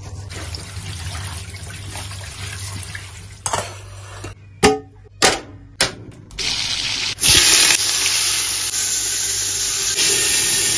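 Tap water running over food in a metal strainer in a steel sink, then three or four sharp clacks. From about seven seconds in comes a loud, steady sizzle of meat frying in hot oil in a pot.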